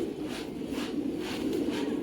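A flock of domestic pigeons cooing in a steady low murmur, with a soft, even swishing about three times a second.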